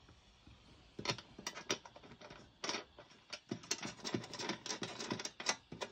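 Thumbscrews being hand-tightened into a ceiling light fixture's ring: a run of irregular small clicks and scrapes, starting about a second in.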